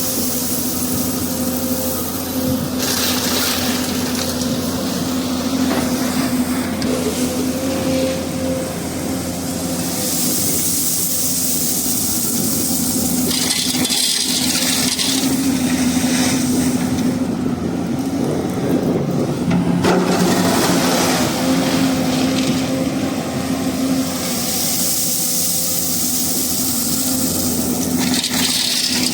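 Hyundai 215 crawler excavator's diesel engine running steadily under load. Bursts of harsher, hissing and grinding noise come and go every few seconds as the machine works, digging and loading stone.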